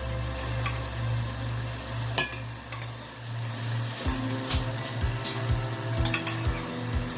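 Food sizzling as it fries in a cooking pot and is stirred, with a few sharp clinks of the spoon against the pot. Background music plays underneath, and a steady low beat comes in about four seconds in.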